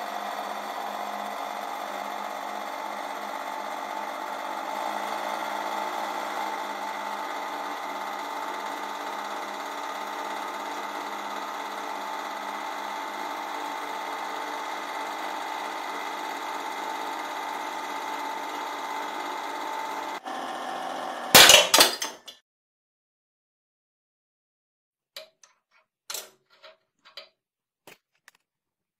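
Hydraulic press running steadily with a constant hum as it loads a Milwaukee ratchet wrench through a socket. About 21 seconds in comes one loud, sharp crack as the ratchet's square drive gives way under the load. A few light metallic clicks follow near the end.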